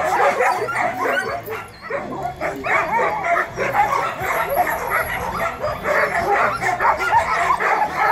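A team of harnessed huskies on a gangline barking and yipping all at once as handlers hook them up for a run. It makes a continuous chorus of overlapping barks, with a brief lull about two seconds in.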